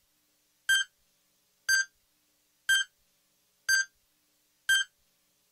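Countdown clock beeps: a short electronic beep once a second, five times, each marking one second of a TV station's sign-on countdown.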